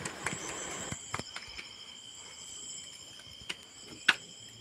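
Insects chirring steadily in a high-pitched, unbroken chorus, with a few sharp clicks, the loudest near the end.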